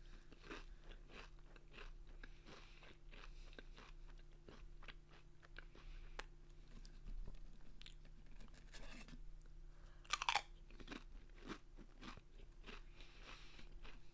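Chewing and crunching Pringles BBQ potato crisps close to the microphone: steady small crunches, with one louder bite about ten seconds in.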